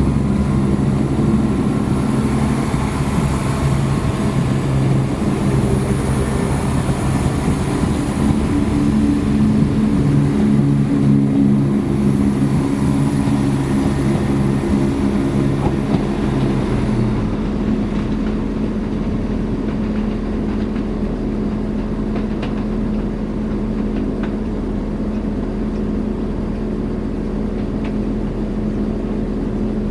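Chiltern Railways Class 168 diesel multiple unit pulling away under power, its engines running with a high whine, while a diesel train idles alongside. About 17 s in, the departing train's engine note and whine stop, leaving the steady idling hum.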